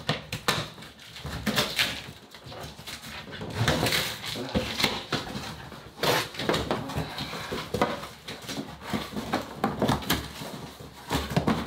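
Scissors cutting packing tape on a tall cardboard box, then the cardboard flaps being pulled open: a string of irregular scrapes, rips and rustles.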